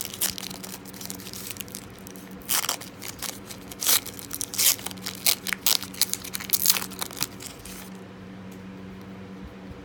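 Foil trading-card pack wrapper being torn open and crinkled in the hands, a run of irregular crackling rips that is loudest in the middle and stops about two seconds before the end.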